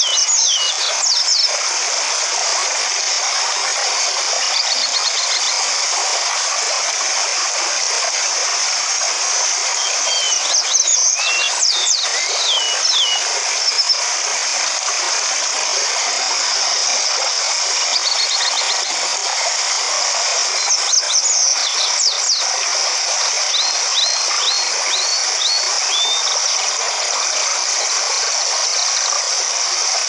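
Stream water rushing steadily over rocks, with small birds chirping now and then: clusters of quick rising and falling whistles, and near the end a run of five or six short repeated notes.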